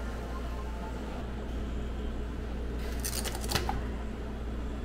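Steady low hum, with a brief crinkling rattle of a thin plastic cup being handled and pressed up to the beer dispenser's nozzle about three seconds in.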